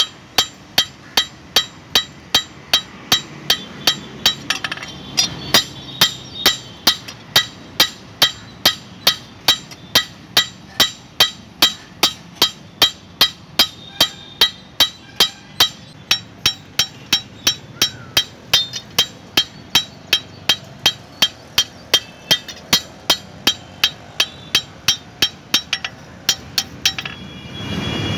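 Hand hammer beating a steel meat cleaver blade on an anvil in a steady rhythm, about two to three blows a second, each blow with a short metallic ring. The blows stop near the end, where a low rumble comes in.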